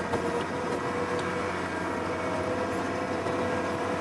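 Snow groomer's engine running steadily under load, heard from inside the cab, with a steady whining tone over the low drone, as the front blade pushes and spreads snow.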